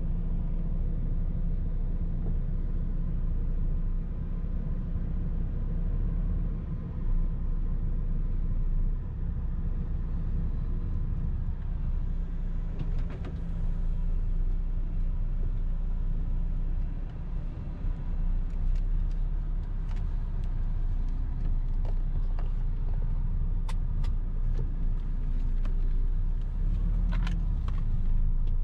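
Semi-truck's diesel engine running at low revs while the truck creeps across a yard, a steady low rumble heard from inside the cab. A few short clicks come in the second half.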